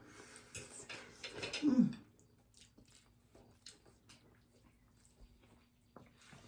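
Close-up eating of crispy cornmeal-fried fish: crunching and chewing for about two seconds, ending with a short falling "mm", then faint mouth clicks and smacks.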